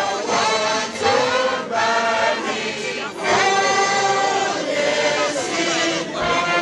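A group of voices singing together like a choir, with long held notes that slide between phrases.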